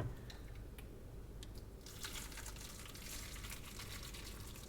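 Faint trickle of running water, with a few light clicks of handling.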